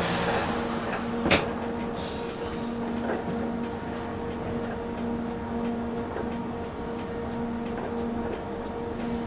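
Light-rail car standing with its electrical equipment giving a steady low hum in two tones, heard from the driver's cab. There is a sharp click about a second in and a few faint clicks later, as console buttons are pressed.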